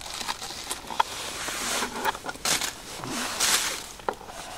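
Rustling and scraping as a bunch of garlic chives is handled and laid on a cutting board, with a few light knocks; a knife taps the board near the end.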